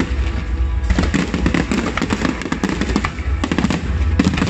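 Aerial fireworks bursting in rapid succession: a dense run of bangs and crackles over a deep low rumble.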